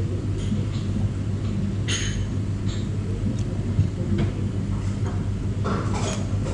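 Steady low hum of room machinery such as ventilation or refrigeration, with a light clink about two seconds in, like chopsticks against a ceramic bowl.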